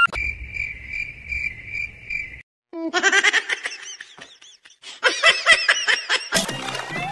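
Edited-in sound effects: a steady high pulsing chirp, about three pulses a second, like a cricket sound effect, for about two and a half seconds. Then, after a brief break, two bursts of quick high squeaky chirps and laughter-like squeals, with music coming in near the end.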